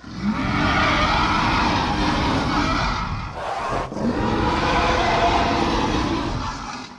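Daspletosaurus roar sound effect: two long, harsh, rasping roars back to back, each about three seconds, with a short break between them.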